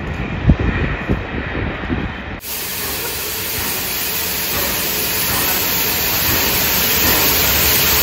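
Wind buffeting the microphone in gusts, then, about two and a half seconds in, an abrupt switch to a steady loud hiss of steam from the Bulleid Battle of Britain class steam locomotive 34067 Tangmere, slowly growing louder.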